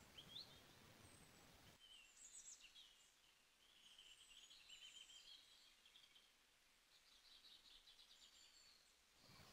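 Near silence, with faint high chirps of small birds scattered throughout.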